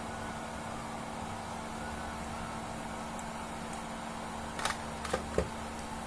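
Steady background hum with a steady low tone, like a room's air conditioning. About five seconds in come a few light clicks and taps as the fiber cable and the optical power meter are handled.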